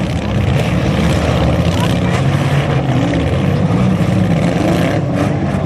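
Several compact demolition-derby cars' engines running loud and revving, the pitch rising and falling again and again.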